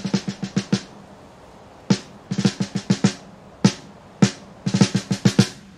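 Drum kit playing: quick runs of six or seven snare strokes alternate with single accented hits, over a faint steady hiss.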